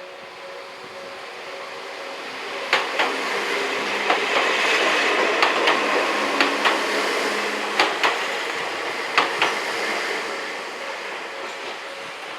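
Enoden (Enoshima Electric Railway) train passing over a level crossing. Its wheels clack in pairs over the rail joints as the running noise swells and then fades. The crossing's warning bell, an old Odakyu-type tone that is kept quiet in this residential street, rings steadily at the start and again near the end, and is drowned out while the train goes by.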